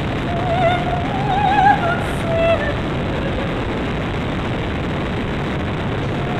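Dynam P-51 RC plane's electric motor and propeller running with wind rushing over it, a steady rushing noise. A few short wavering tones come and go in the first few seconds.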